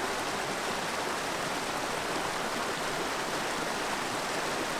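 Swollen mountain creek rushing over rocks in a steady, even wash of water.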